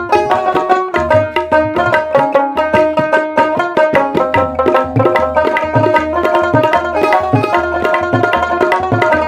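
Background instrumental music: a melody of changing notes over a steady drum beat.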